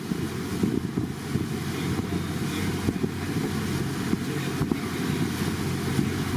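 Motorboat running steadily under way, with its engine hum and the churning wake behind it, and wind buffeting the microphone with occasional short knocks.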